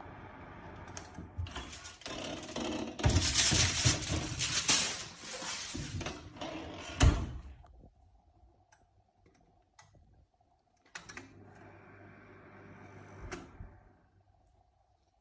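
Microwave oven making irregular crackling and clicking noises, loudest a few seconds in, with a sharp click about seven seconds in, then a faint steady hum and a second, quieter crackling stretch near the end.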